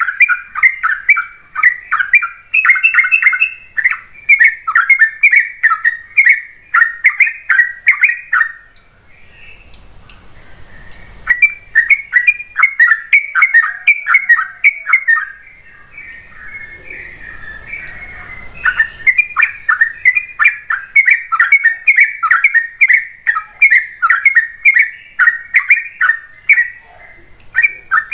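Yellow-vented bulbul (trucuk) singing fast, continuous runs of short chattering notes. It breaks off about nine seconds in, starts again a couple of seconds later, goes quieter past the middle, then sings on steadily to the end.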